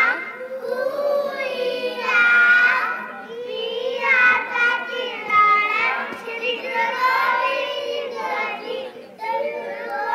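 A group of young boys singing together into microphones, in phrases of sustained, sliding notes with short breaks between them.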